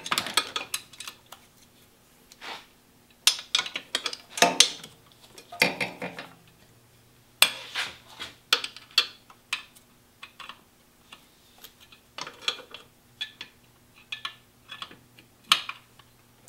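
Wrenches working on the alternator mounting bolts of a BMW R1100RT engine, giving irregular metallic clinks and clicks as the bolts are tightened down after the belt tension is set.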